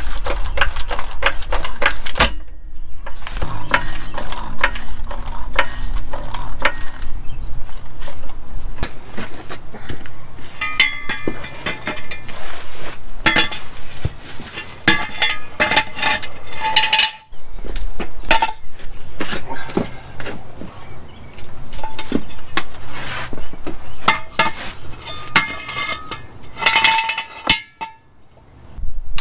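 Repeated metal clinks and clanks from a floor jack being pumped to lift the truck and a steel jack stand being set under it, with short ringing metallic notes among the knocks.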